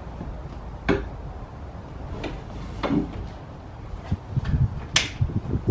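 Foldaway bench seat being swung down from its stowed position: clicks and clunks of the metal folding frame and its latch, with three sharper knocks about two seconds apart and some low thumps near the end.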